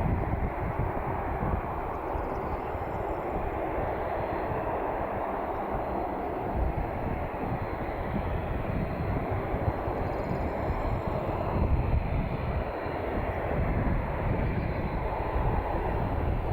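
Bombardier Dash 8 Q400's Pratt & Whitney PW150A turboprop engines running steadily, a continuous deep rumble with a faint high whine above it.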